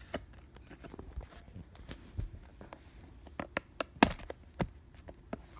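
Handling of a handcuff package: scattered light clicks and taps, with a sharper knock about four seconds in.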